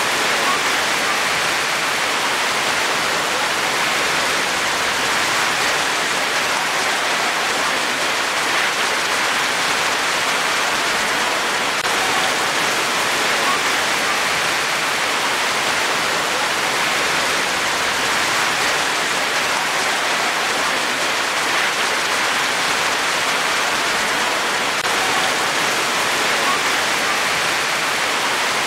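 Rain falling steadily: an even, unbroken hiss of many drops, with no single drops or thunder standing out.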